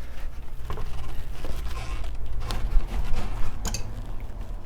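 A few faint clicks and light scrapes, like the handling of bicycle wheels and parts on a workbench, over a steady low hum.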